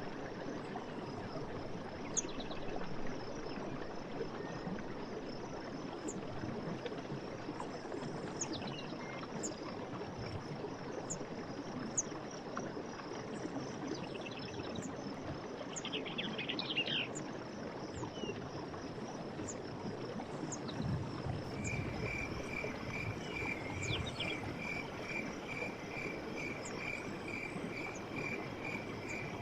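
Forest ambience of steadily running water with a continuous high insect drone and short high bird chirps about once a second, plus a brief twittering flurry midway. In the last third a call of rapidly repeated pulsed notes, about three a second, joins in, typical of a frog or insect.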